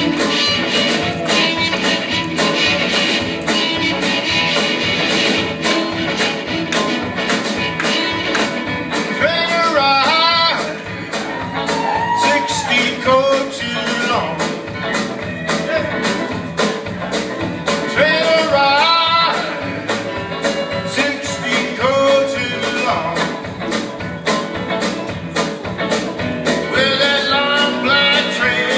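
Live rock band playing: electric guitars, keyboard and a drum kit keeping a steady beat, with a lead voice singing in phrases over it.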